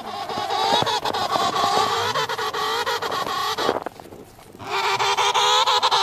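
Emperor penguin calling: a long wavering call of nearly four seconds, then after a short pause a second call begins.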